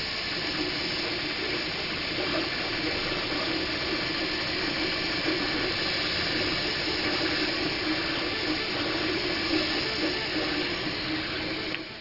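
Makerbot 3D printer running: a steady whirring hiss of its fans and stepper motors with a low hum, which drops away abruptly near the end.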